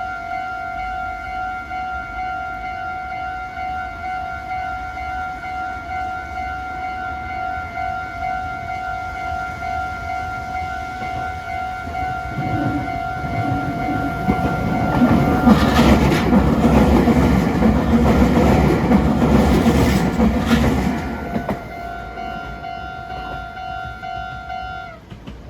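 Japanese level-crossing warning bell ringing in a steady electronic ding-ding while a Meitetsu Komaki Line electric train rumbles over the crossing, loudest a little past the middle. The bell cuts off suddenly near the end once the train has cleared.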